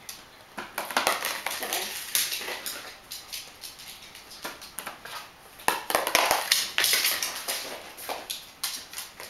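Irregular clicks and clatter of plastic stacking rings and a Shetland sheepdog moving about a wooden floor as the dog stacks rings on a toy pole. There are two busier runs of clatter, about a second in and about two-thirds of the way through.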